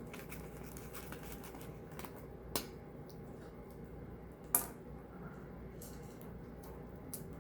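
Slime being worked and squished by hand, a soft sticky handling noise, with two sharp clicks about two and a half and four and a half seconds in.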